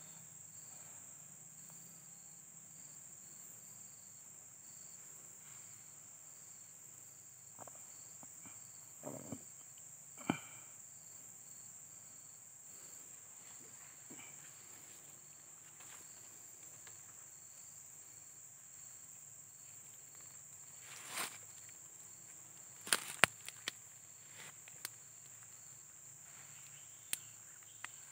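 Steady high insect buzz with a faint, regular chirping under it, broken by scattered clicks, knocks and rustles, the sharpest a cluster of clicks about two-thirds of the way through.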